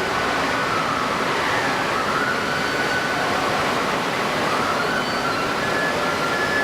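Steady rushing waterside ambience of strong wind and moving water, with a faint whine wavering up and down in pitch through it, sped up to 1.75 times normal speed.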